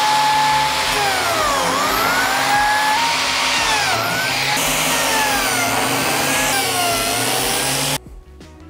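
Handheld biscuit joiner running and plunge-cutting biscuit slots into spruce corner braces: a loud motor whine whose pitch dips several times as the blade bites into the wood, then recovers. It cuts off suddenly near the end.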